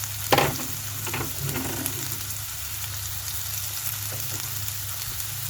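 Chopped garlic and ginger sizzling in a little hot oil in a pan, with a steady low hum underneath. A utensil knocks against the pan just after the start, with a couple of lighter knocks about a second later.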